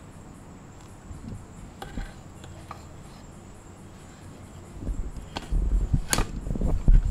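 Metal spoon scraping and clinking against a steel platter and an iron karahi as rice pulao is dished out, with a few sharp clinks and handling knocks in the second half. Crickets chirp faintly in the background.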